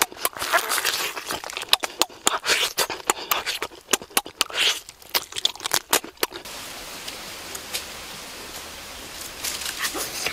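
Close-up eating sounds of cooked chicken being chewed and torn by hand: a rapid, uneven run of wet clicks, lip smacks and tearing. The eating stops about six seconds in, leaving a steady background hiss with a few faint clicks.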